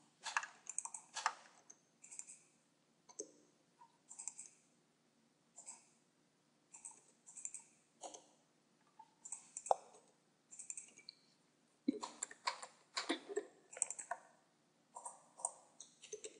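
Irregular clicking of a computer mouse and keyboard, in scattered short runs, with a denser flurry of clicks about twelve seconds in.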